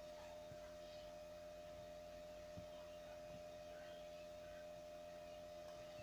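Near silence with a faint, steady hum at one constant pitch and a few faint ticks.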